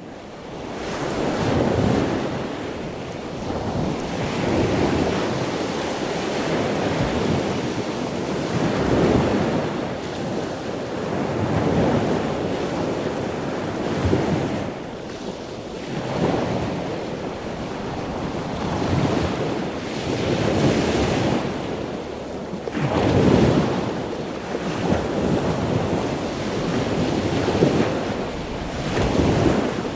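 Ocean waves: a continuous wash of surf that swells and eases every few seconds, fading in at the start.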